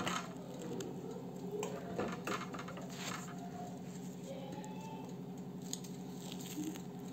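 Steady low hum of a running kitchen appliance, with a few light clicks and taps in the first three seconds and faint short squeaks about four to five seconds in.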